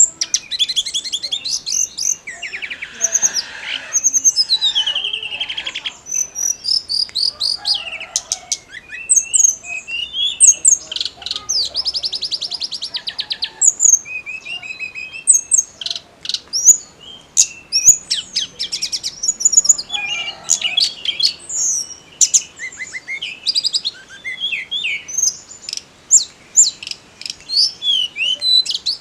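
Tledekan gunung song: a continuous, rapid string of high chirps, whistled notes and buzzy trills, the 'gacor' full-song call of the bird.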